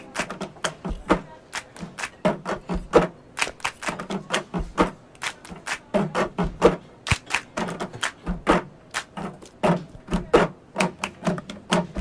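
Plastic cups knocked, tapped and set down on a tabletop: many quick hard clicks, several a second, some with a duller thud.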